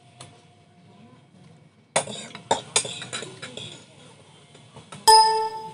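Metal spoons clinking and scraping against small ceramic bowls during eating, starting about two seconds in. Near the end comes a sudden, loud, short pitched sound.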